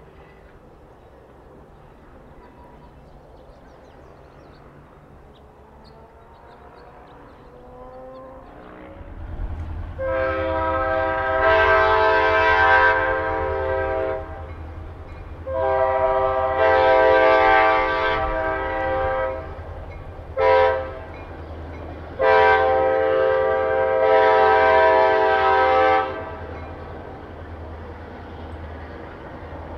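Multi-chime air horn of the F40PHM-2C diesel-electric locomotive sounding the grade-crossing signal: two long blasts, one short and a final long one. Under the horn the locomotive's diesel engine rumbles, growing louder about nine seconds in after a faint start.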